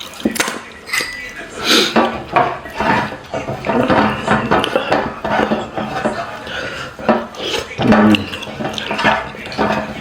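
Close-miked eating of rice and meat curry: chewing and mouth sounds with clinks of dishes and a plate.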